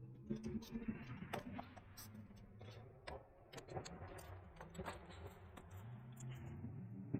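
Light clicks and rubbing of a bicycle tire being worked onto its rim by hand, scattered ticks over a faint rustle.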